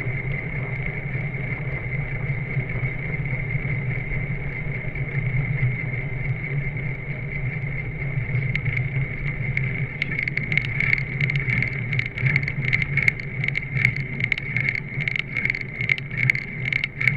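Wind and road noise on a camera mounted on a road bicycle's handlebar while riding. It is a steady rushing rumble, and from about ten seconds in, quick irregular clicks and rattles join it.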